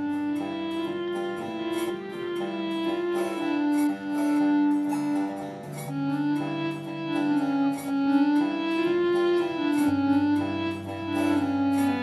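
Background music: a slow melody on bowed strings over held low notes, with light regular ticks above it.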